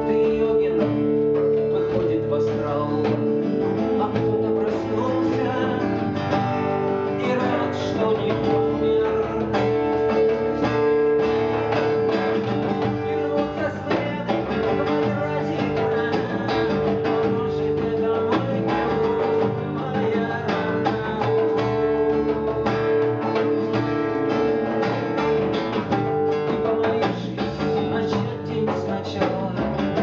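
Acoustic guitar played live in a song, with a steady held note sounding under the guitar through most of the passage.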